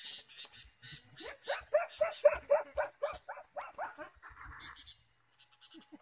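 An animal calling: a quick series of about a dozen short, harsh rising notes, roughly four a second, fading out after about four seconds.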